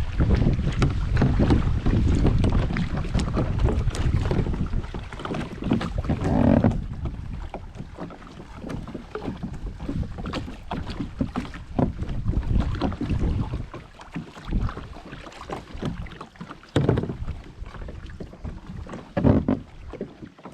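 Kayak paddling: wind buffeting the microphone for about the first seven seconds, then quieter water splashes from paddle strokes with small irregular knocks.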